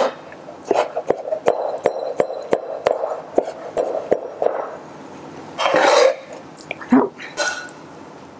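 Chef's knife chopping cooked ham into strips on a plastic cutting board, a steady tapping of about three strokes a second. The chopping stops about four and a half seconds in, and a louder brief noise follows about a second later.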